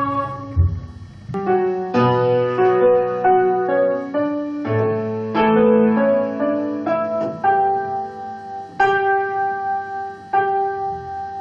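Music: a keyboard with a piano sound playing a slow passage of single notes and chords, each struck and left to ring.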